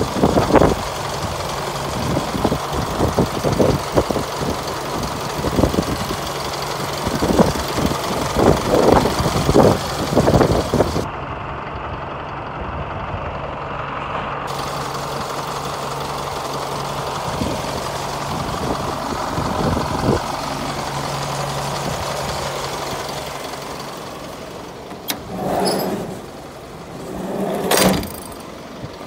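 Isuzu Elf truck's engine idling steadily, with irregular knocks and bumps over the first ten seconds or so and two louder swells of noise near the end.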